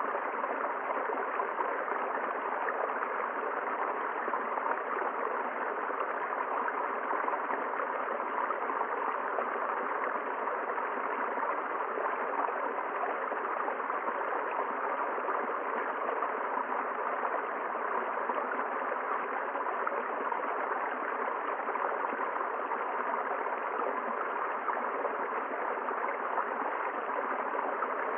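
River water rushing and gurgling over rocks, a steady even rush with no breaks.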